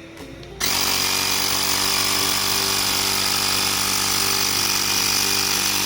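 Xiaomi portable electric air compressor switching on about half a second in and running steadily with a fast-pulsing motor-and-piston hum as it pumps air.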